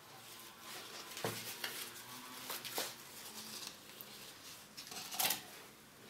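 Hands handling plastic plant pots and a plastic planter box while repotting petunias: scattered light taps, clicks and rustles, with a louder knock about five seconds in.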